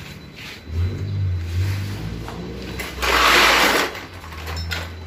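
Pneumatic workshop tool on a compressed-air line, triggered in short bursts: a brief low whirr about a second in, then a louder, harsher burst of just under a second about three seconds in.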